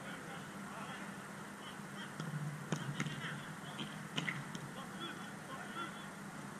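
Distant shouts of footballers and a few sharp knocks of the ball being struck, about three seconds in and again near four seconds, over a steady low hum.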